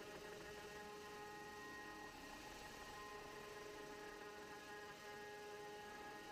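Small CNC router spindle running as it cuts circular grooves into a wooden board: a faint, steady hum with several high steady tones and no knocks or changes.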